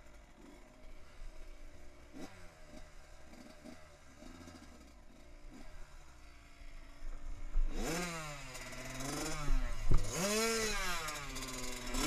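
Dirt bike engine, faint at first, then much louder from about eight seconds in as it revs up and down repeatedly. A sharp knock near ten seconds, at the loudest point.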